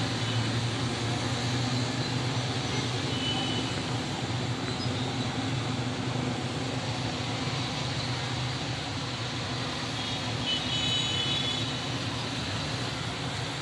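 Steady outdoor street noise with a low traffic rumble and no passing events. A few faint, short high tones sound about ten seconds in.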